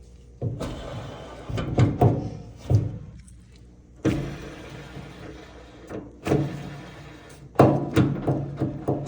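Irregular knocks and clunks of dryer parts being handled during disassembly, about six in all, with scraping and rubbing between them.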